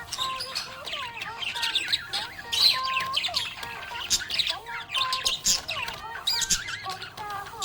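Budgerigars chirping and warbling in a dense, unbroken run of short squeaky chirps and squawks.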